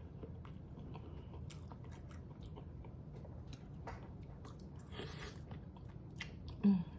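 Close-up chewing and biting of seafood-boil food, with scattered crisp clicks and a short noisy burst about five seconds in. A brief vocal sound comes near the end.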